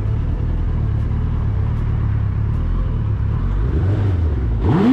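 Suzuki sportbike's engine running at low revs, a steady low rumble as the bike rolls slowly, growing louder just before the end.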